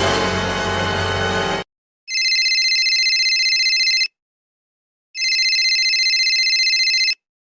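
Telephone ringing: two rings, each about two seconds long of a steady, high, fluttering tone, about a second apart. Before them, a burst of music cuts off about a second and a half in.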